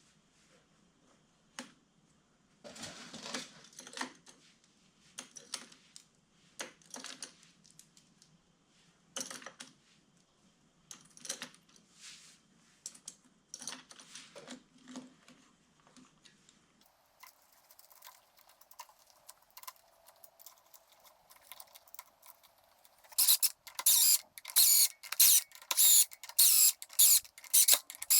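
Metal clutch parts and hand tools clinking and clicking as a dirt bike clutch is reassembled, in scattered separate knocks, then a fast run of louder clicks over the last few seconds.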